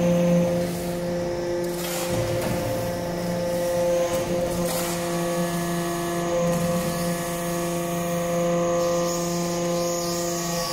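Hydraulic metal-chip briquetting press running, its hydraulic power unit giving a steady hum, with a couple of brief clatters about two and five seconds in.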